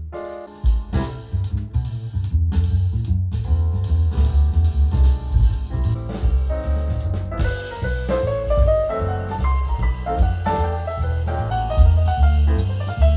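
Instrumental jazz with drum kit, bass and piano, played back through a budget loudspeaker under test, with a strong, steady bass line. About halfway through, a melodic line rises and becomes more prominent.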